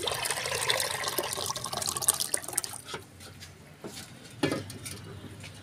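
Thick spinach dal (palak dal) poured from one metal pot into another holding fried masala, a splashing pour for about three seconds, then a few light knocks.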